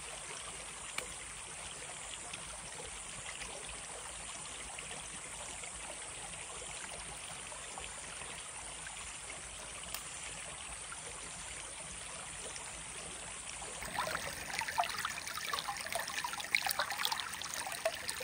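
Creek water running steadily. About fourteen seconds in, a louder, irregular crackling and rustling joins it.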